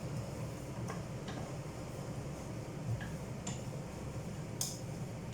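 Kitchen cooking sounds: a steady low hum with a few scattered light ticks and taps.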